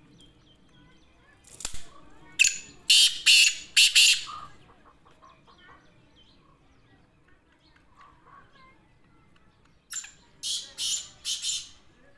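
Black francolin calling: two loud bouts, each a quick run of four or five short notes, the first about a second and a half in and the second near the end.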